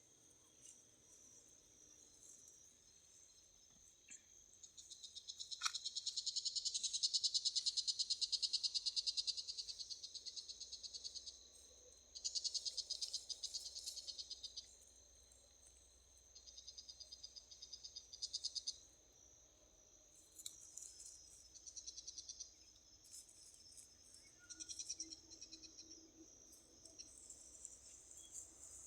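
Insects trilling: high, rapid pulsed trills come in bouts of a few seconds over a steady high-pitched drone. The longest and loudest bout starts about five seconds in.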